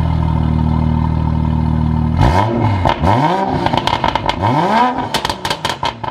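Toyota Supra's turbocharged B58 inline-six, running E85 through a titanium exhaust, idles steadily, then takes about five quick throttle blips from a little after two seconds in. Each rev rises and falls away. Near the end, sharp crackles and pops come from the exhaust as the revs drop.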